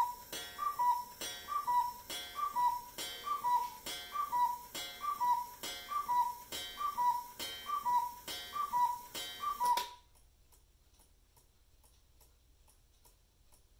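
J. Engstler Black Forest one-day cuckoo clock calling the hour at twelve: its bellows-and-pipe cuckoo call, a higher note followed by a lower one, repeats about once a second with a click of the mechanism at each call, and stops about ten seconds in. After that only the faint tick of the movement remains.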